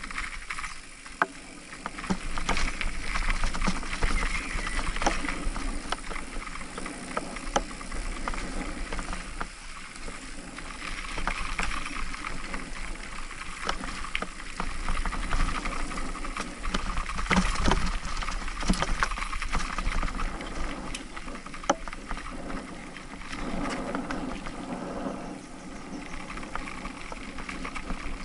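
Mountain bike riding a rough dirt trail: steady noise of the tyres on dirt and gravel with a low rumble, broken by frequent sharp clicks and knocks as the bike rattles over bumps, the strongest cluster a little past the middle.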